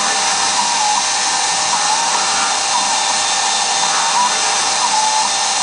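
Sieg X2 mini mill cutting aluminium under flood coolant: a steady high whine from the spindle, driven by a modified treadmill motor, and the end mill cutting. Short rising and falling tones recur about once a second as the cutter moves along its path.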